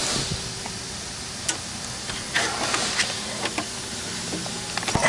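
Scattered clicks, taps and short scrapes of a clutch cable and its fittings being worked by hand out of a bracket, over a faint steady hum.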